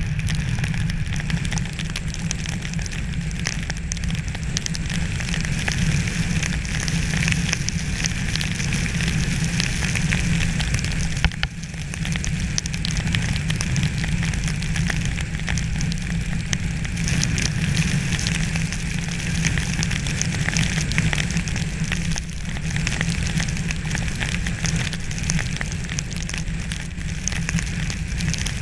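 Sleet and freezing rain pattering and crackling steadily on surfaces, over a low, steady rumble.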